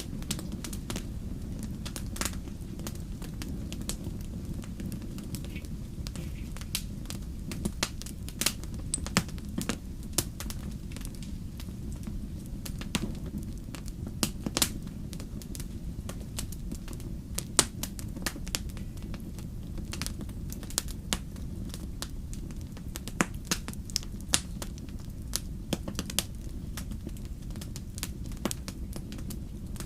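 Wood fire crackling: irregular sharp pops and snaps over a steady low rumble of the burning flames.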